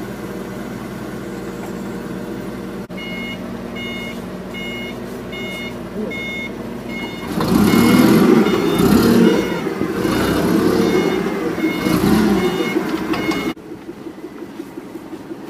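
Forklift engine running, its reversing alarm beeping steadily about every half second or so. About seven seconds in, the engine revs up louder while the forklift drives in reverse, then drops back sharply near the end.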